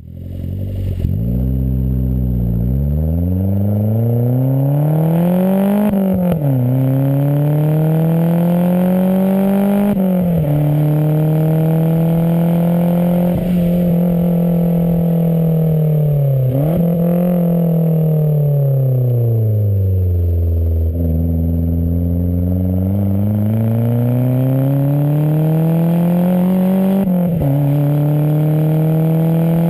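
Mazdaspeed Protege's turbocharged four-cylinder engine pulling through the gears: the engine note climbs in each gear and drops sharply at upshifts a few seconds apart. About two-thirds through it winds down as the car slows, then climbs again with another shift near the end.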